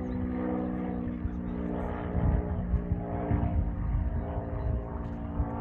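Propeller airplane engine droning steadily, with wind rumbling on the microphone.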